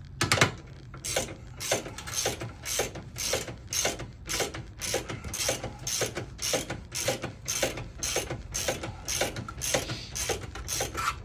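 Socket ratchet clicking in repeated back-strokes, about two bursts a second, while tightening the shoulder bolt of a golf cart's rear leaf-spring shackle with a 3/4-inch socket.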